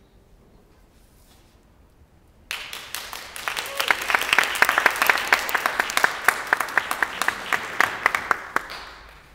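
Audience applauding, starting suddenly about two and a half seconds in, with single claps standing out, and dying away near the end.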